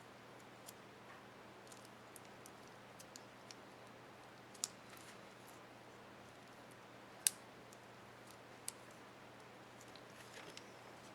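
Sparse small plastic clicks from a laptop keycap and its retainer clip being handled and fitted, a few sharp ones standing out, the sharpest about seven seconds in. A faint steady hum runs underneath.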